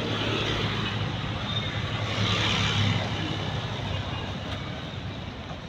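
A motor vehicle's engine going past and fading away, over a steady wash of road noise.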